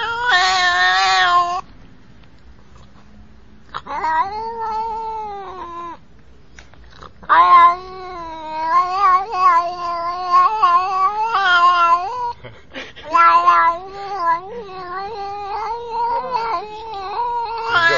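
Domestic cat yowling in long, drawn-out wails with wavering pitch, several in a row with short breaks between them.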